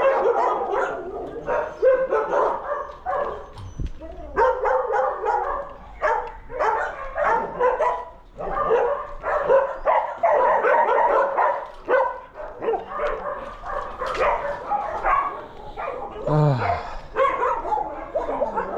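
Many shelter dogs barking at once, an overlapping chorus without a pause.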